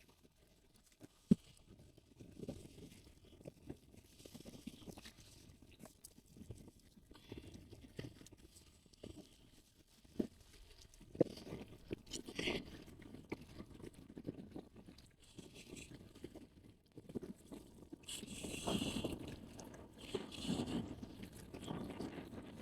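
Faint, scattered crunching, clicking and rustling handling sounds, with one sharp click about a second in and a denser patch of noise near the end.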